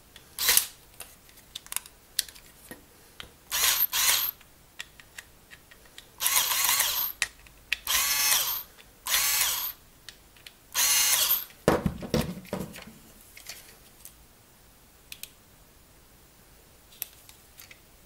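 Cordless electric screwdriver whirring in about six short bursts, each under a second, on the screws of a plastic game controller case, with small handling clicks between and a low knock near the middle.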